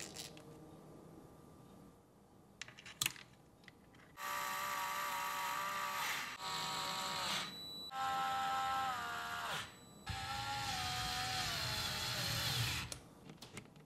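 Small electric screwdriver driving hex screws into the suspension link mounts: four short runs of a motor whine, the later ones dropping in pitch as the screw tightens. A few light clicks come shortly before.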